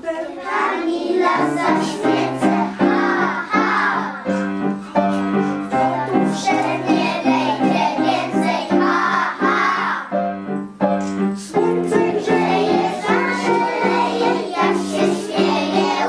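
A group of young children singing a song together to piano accompaniment.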